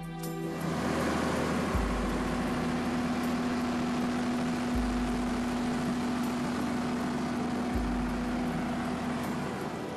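Boat engine running steadily under a rush of wind and water noise, with background music whose deep bass notes come about every three seconds.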